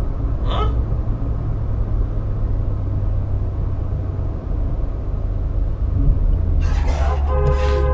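Steady low road and engine rumble of a car driving at highway speed, recorded by its dashcam. Near the end a louder sound with several held pitches comes in over it, then everything cuts off sharply.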